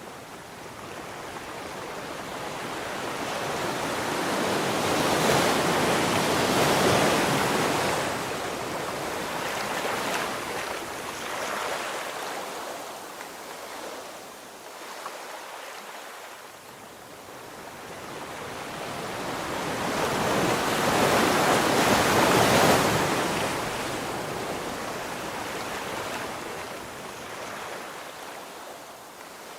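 Sea waves washing in on the shore. The surge builds to a loud peak twice, about six and twenty-two seconds in, fading between.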